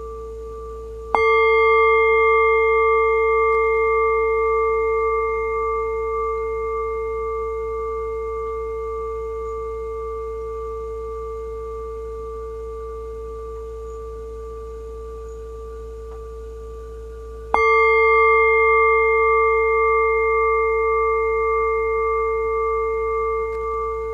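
A bell struck twice, about a second in and again some sixteen seconds later, each stroke ringing on in a clear sustained tone with several higher overtones and slowly dying away with a gentle waver.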